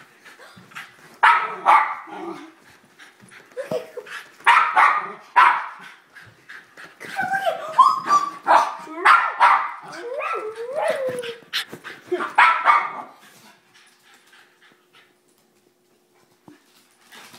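Dog barking and whining in excited bursts, with high gliding whines among the barks: a dog worked up at what it sees on the television. The outbursts die down in the last few seconds.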